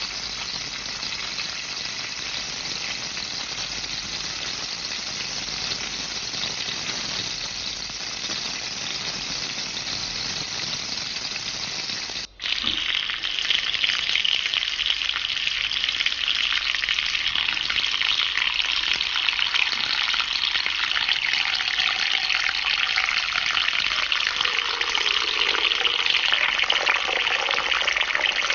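Food frying in a pan, a steady sizzle. About twelve seconds in the sound cuts out for a moment, and a louder, crisper crackling sizzle follows.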